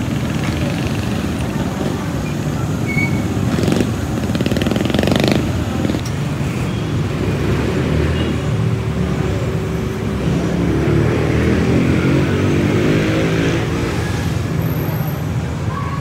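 Street traffic: motorcycle and tricycle engines running close by, with one engine speeding up and pulling away from about ten seconds in.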